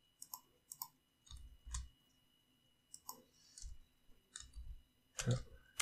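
Faint, scattered computer mouse and keyboard clicks: about half a dozen separate sharp clicks with a few soft low thumps in between.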